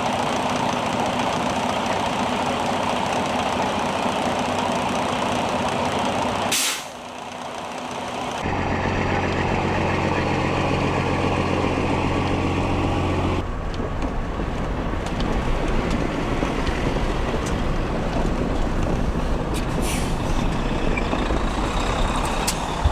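Road sound from blizzard footage: steady traffic and engine noise, with a short hiss about six and a half seconds in, then a heavy truck engine running steadily for about five seconds before the sound changes abruptly to a broad rumble.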